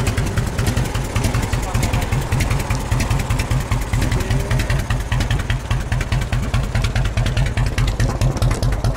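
Harley-Davidson V-twin motorcycle idling through an extra-long fishtail exhaust, a steady rapid pulse of firing strokes.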